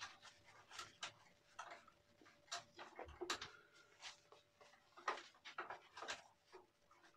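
Faint soft swishing of a lathered shaving brush worked over the face, short irregular strokes about two a second.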